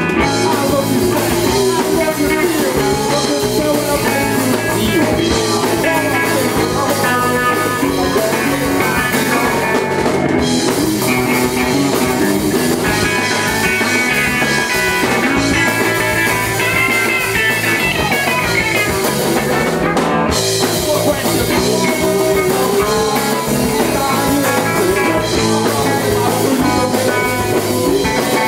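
Live punk rock band playing a loud song, with electric guitar and drum kit going without a break.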